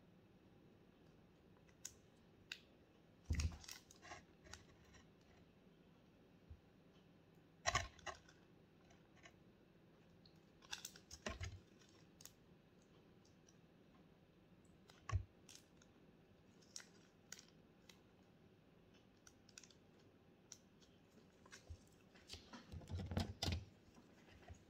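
Scattered crinkles, clicks and taps of clear plastic being handled, with sharper ones about 3, 8, 11 and 15 seconds in and a busier cluster near the end.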